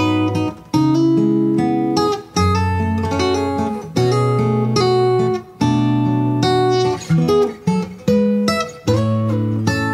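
Acoustic guitar playing an instrumental passage: chords struck and left to ring, with quicker picked notes between them.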